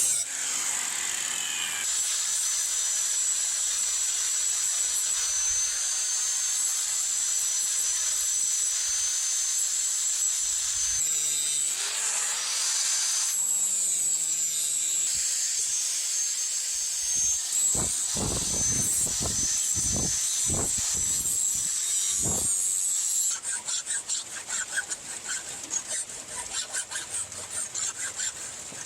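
Steel being ground on a knife blade made from rebar: a steady rasping hiss with a faint high whine. A few dull knocks come about two-thirds of the way through, and near the end it changes to rapid short scraping strokes.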